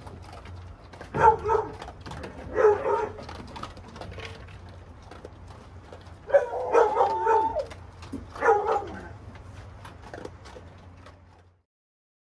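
Hound dog barking: short barks about a second in and near three seconds, a longer drawn-out bark around six to seven and a half seconds, and one more a little after eight seconds.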